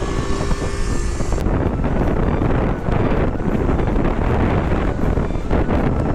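Wind buffeting the microphone on a moving 125 cc scooter at about 55–80 km/h, over the scooter's engine and road noise. The sound changes abruptly about a second and a half in.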